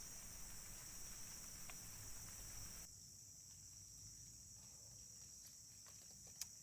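Faint, steady, high-pitched chorus of insects, with a single sharp click near the end. A lower background hiss falls away abruptly about three seconds in.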